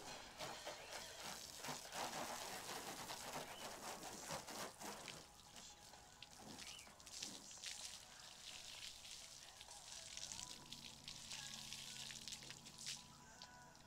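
Water spraying and spattering onto a car's bodywork during the final rinse of a hand wash: an uneven hiss with crackling splashes, heaviest in the first half.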